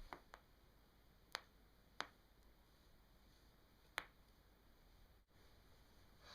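Joint cracks during a chiropractic adjustment: a few sharp, short pops over a quiet room. There are two faint ones at the start and three louder ones spread over the following three seconds.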